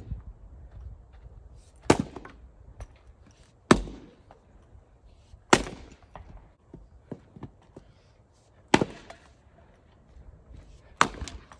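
Axe splitting firewood rounds: five sharp chops, about two seconds apart with one longer pause in the middle, each a crack of the blade driving into and splitting the wood.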